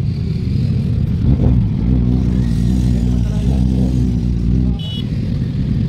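Motorcycle engines running at low speed with a steady low engine note. The note drops off briefly near the end, where a short high beep sounds.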